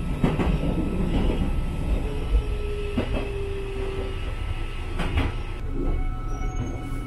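Eizan Electric Railway electric train running on the track, heard from on board: a steady low rumble with a held tone for about two seconds in the middle and two sharp clicks about two seconds apart.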